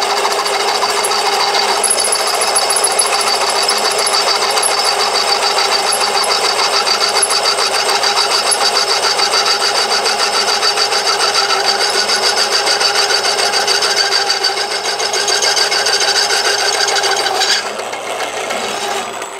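Homemade drill driven by an old washing-machine motor through a gear reducer, running steadily under load as a half-inch bit cuts through thick steel plate: a steady whirr with a fine, fast ripple. Near the end, as the bit comes through the plate, the sound falls off and then stops.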